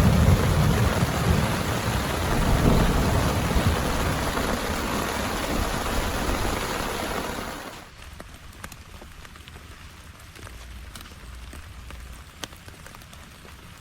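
Heavy rain with a low rumble of thunder slowly dying away. About eight seconds in the sound drops suddenly to quieter, lighter rain, with separate drops landing as sharp ticks.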